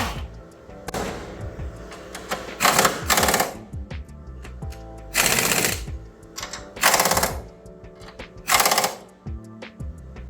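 Impact wrench rattling in about half a dozen short bursts, each roughly half a second long, as fasteners are run in, over background music.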